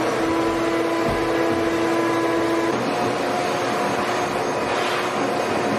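Wet/dry shop vacuum running steadily while its hose is swept across the floor, a loud rushing of air with a thin motor whine. The whine changes pitch a little under halfway through.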